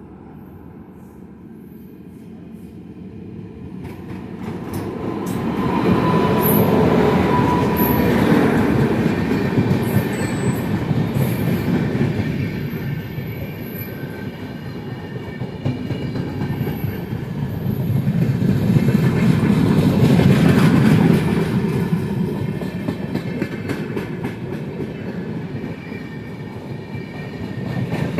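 Express passenger train hauled by a WAP-5 electric locomotive passing close by at speed. A rumble swells in about four seconds in as the locomotive arrives, then the coaches' wheels clatter steadily over the rail joints, growing louder again around the middle.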